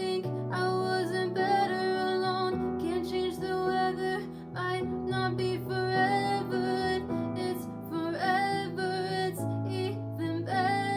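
A woman singing a slow melody over guitar accompaniment.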